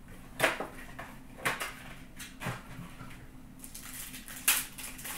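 Hockey card packs being handled: a few sharp clacks about a second apart, then the crinkle and rip of a pack wrapper being torn open about four seconds in.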